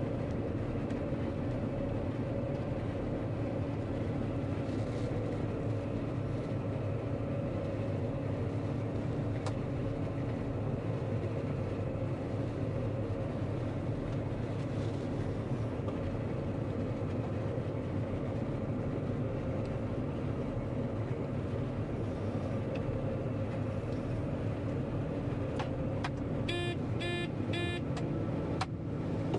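John Deere diesel farm machine running steadily under load, a continuous engine drone. Near the end a quick run of electronic beeps sounds over it.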